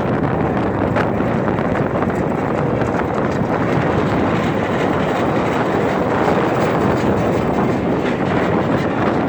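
Storm wind rushing over the microphone in a steady, loud roar with no breaks.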